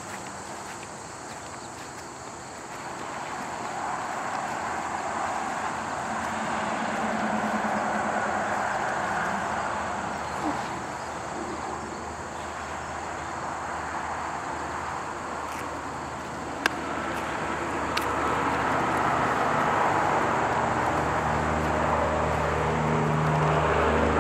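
Outdoor background noise: a broad rushing sound that swells and fades and swells again, over a steady high drone, with a low mechanical hum growing near the end and two sharp clicks a little past the middle.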